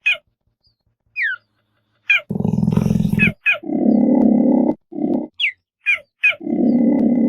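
Cheetah calling: short, high chirps that fall in pitch, alternating with low growls about a second long, the loudest growls in the middle and near the end.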